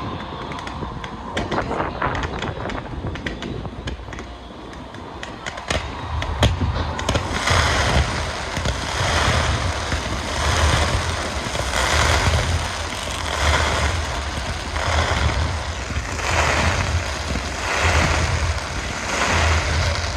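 Fireworks display: scattered crackles and pops, then from about seven seconds in a steady run of booming bursts about every second and a half.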